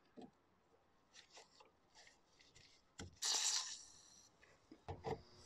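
Aerosol spray can hissing in one short burst about three seconds in, spraying through its red straw onto the fuel line's quick-connect fitting at the fuel filter. A few light clicks of a screwdriver working at the connector's clip come before and after it.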